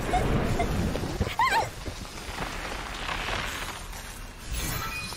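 A girl's brief whimpering cry, followed by a steady soft hiss from an anime sound effect.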